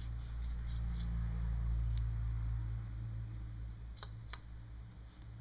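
A few light metallic clicks of a caliper being set against a piston, one about two seconds in and two close together near the end, over a steady low hum.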